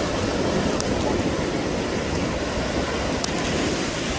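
Sea surf washing onto the beach, a steady rushing noise.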